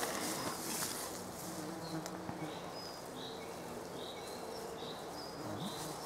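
A flying insect buzzing close by, its hum wavering up and down in pitch. Behind it, short high chirps repeat about once a second.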